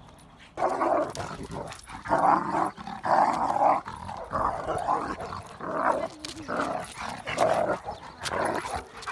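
A black German Shepherd and an American Staffordshire Terrier growling at each other in rough play-fighting. The growls start about half a second in and come as a run of short, irregular growls.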